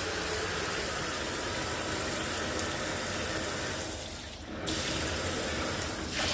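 Water running steadily from the tap of a freshly repaired jacuzzi bathtub, with a brief dip in the flow sound about four seconds in.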